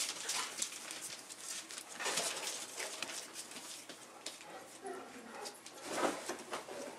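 A litter of young bullmastiff puppies whimpering and squeaking, over scratching and rustling as they scrabble about on a blanket, with a louder cry about six seconds in.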